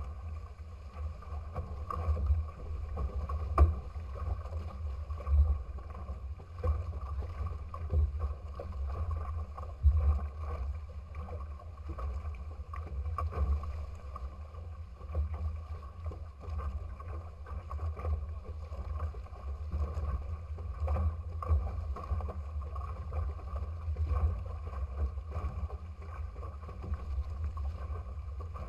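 Sailing trimaran under way: wind buffeting the bow-mounted camera's microphone as an uneven low rumble, with water rushing past the hulls and a few louder splashes.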